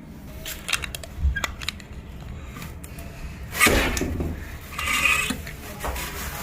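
Light metallic clicks and clinks of a hand-operated stainless-steel tube crimping machine being handled as it is set up for batch coding, with one louder clank about three and a half seconds in.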